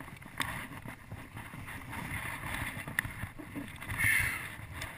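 Steady rush of river water with wind buffeting the microphone, broken by a few sharp clicks and a louder swell of noise about four seconds in.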